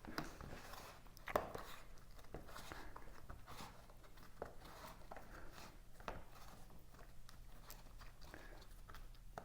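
Faint rubbing and crunching of a rubber garage-door bottom seal being pressed by hand into the gap along a windshield's edge, with scattered small clicks and one sharper click about a second and a half in.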